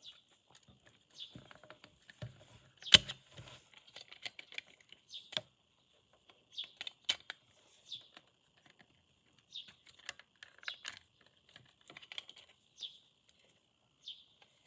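Small plastic parts of a computer mouse being handled and pressed together by hand: scattered light clicks and taps, with one sharper click about three seconds in, over a faint steady high whine.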